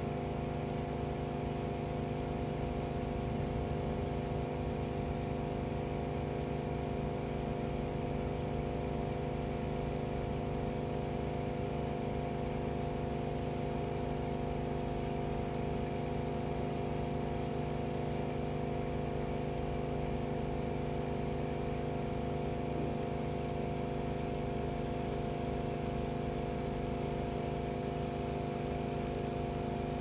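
Aquarium pump running with a steady electric hum.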